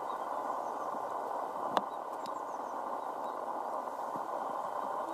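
Streamlined LNER A4 Pacific steam locomotive heard from a distance, running steadily with its train, its sound an even rushing noise. One sharp click a little under two seconds in.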